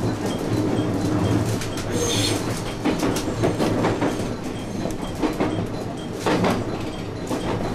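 JR West 221 series electric train running on the line, heard from inside the front car: a steady low running hum with irregular wheel clicks and knocks over the track, and a brief high hiss about two seconds in.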